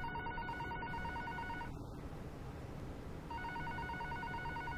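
Telephone ringing with an electronic trilling ring: one ring stops about two seconds in, and after a short pause the next ring begins.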